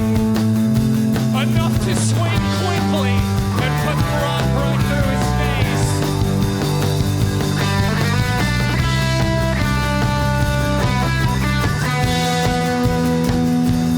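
Live rock band playing a song.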